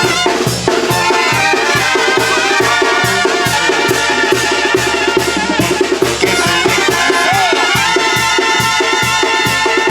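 Mexican banda music: brass and drums playing with a steady beat.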